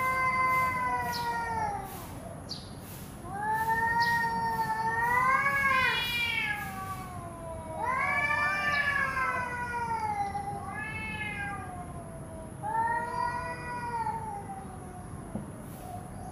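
Domestic cats yowling at each other in a standoff: long, drawn-out yowls that rise and fall in pitch, four in a row with short pauses between, the warning cries that come before a cat fight.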